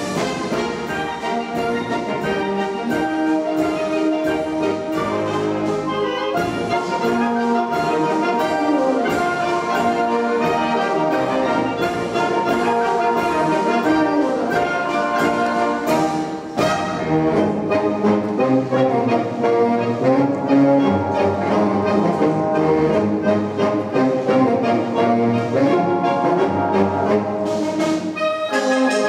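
Wind orchestra playing in full ensemble: tubas, saxophones, clarinets and trumpets together, with drum strokes cutting through the band.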